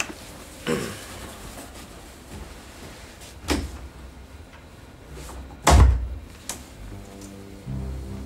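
A few knocks and one heavy low thump about six seconds in, from an office door being shut. Soft background music comes in near the end.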